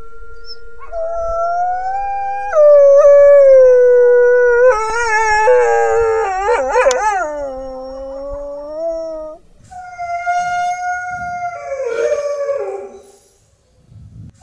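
Mexican gray wolves howling in chorus. One long steady howl is joined about a second in by a higher howl, then several voices overlap, wavering and gliding up and down. After a short break about nine seconds in, the howling resumes and fades out near the end.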